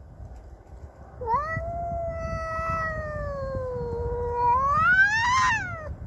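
Domestic cat giving one long, drawn-out territorial yowl at another cat, starting about a second in, sagging slowly in pitch and then rising to a higher wail before breaking off near the end.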